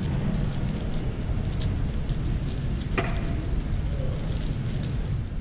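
Rapid light clicking of a MoYu AoShi WR M 6x6 speedcube being turned, with one sharper click about three seconds in, over the steady low rumble of a large, busy hall.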